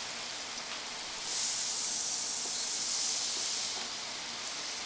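French fries deep-frying in the oil of an electric deep fryer, sizzling with a steady hiss that swells louder for a couple of seconds in the middle. The fries are browning.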